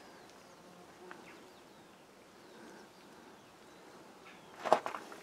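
Faint birdsong over quiet outdoor background, with a sudden short cluster of sharp cracks or knocks near the end.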